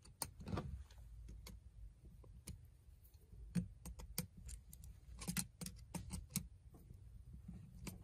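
Faint, irregular small metallic clicks and clinks as a screwdriver tightens a brass terminal screw down on a wire on a duplex wall receptacle, the outlet's metal mounting strap and screws clinking in the hand.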